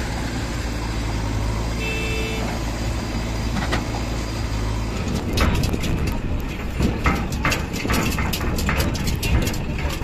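Diesel engines of a backhoe loader and a tractor running steadily close by, with a brief tone about two seconds in. About halfway through the sound changes abruptly to uneven crackling and sharp knocks over a fainter engine.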